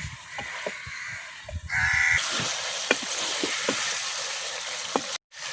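Chicken, potatoes and masala frying in ghee in a pan, sizzling loudly from about two seconds in, with the sharp clicks of a spoon stirring and scraping. Just before the sizzle swells there is a short pitched call from an animal.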